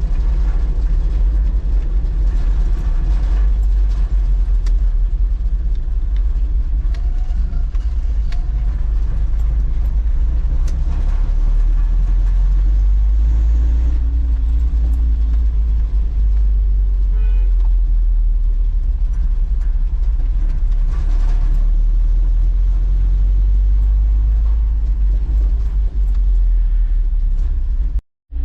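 1985 Toyota 4Runner driving, with a steady low engine and road rumble.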